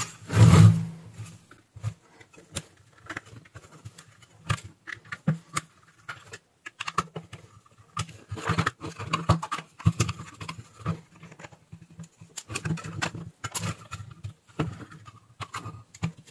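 Irregular clicks, taps and light knocks as hands handle a 24 V switching power supply's circuit board and its aluminium case, lifting the board out of the case. The loudest knock comes right at the start.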